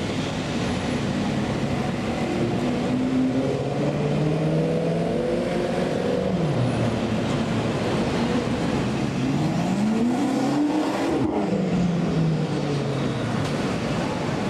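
BMW F10 M5's twin-turbo V8 through an Akrapovic exhaust, driving and accelerating over city traffic noise. The engine note holds steady, drops about six seconds in, then climbs sharply around ten seconds in as it revs up and falls away again.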